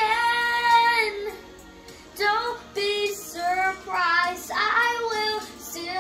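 A boy singing solo: a held note, a short break about a second in, then several sung phrases that glide up and down in pitch.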